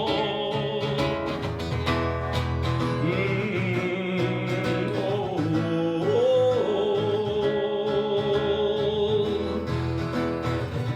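A man singing long held notes with vibrato over a strummed acoustic guitar.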